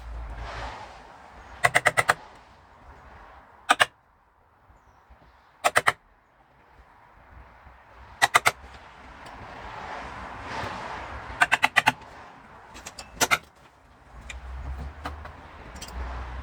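Hammer striking a chisel in short quick bursts of two to five ringing blows, six bursts over the stretch, typical of chopping out the rounded corners of a routed hinge recess in a door edge.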